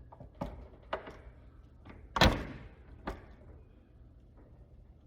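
Hand pop-rivet tool being squeezed on a blind rivet, clicking sharply several times as it pulls the mandrel, with one much louder snap about two seconds in.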